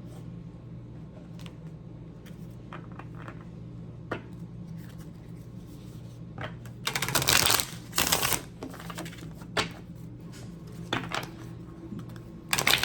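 A deck of tarot cards being handled and shuffled by hand: scattered light card taps and clicks, with two short bursts of brisk shuffling, about halfway through and near the end, over a steady low hum.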